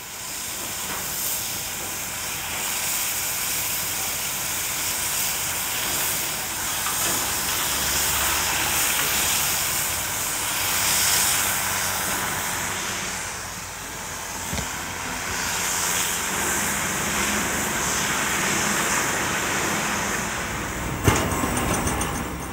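Steam locomotive hissing steadily as it blows off steam. A sharp knock sounds about a second before the end.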